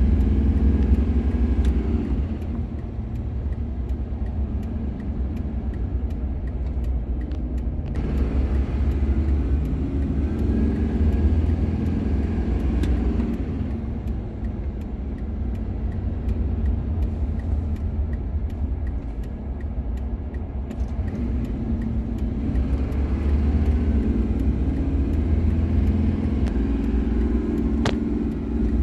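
A 2002 Chevy Silverado's 6.6 L Duramax V8 turbodiesel heard from inside the cab on the road, a low engine and road rumble that swells and eases a few times with the throttle. The truck is down on power under load because actual fuel rail pressure falls short of what the computer requests (code P1093).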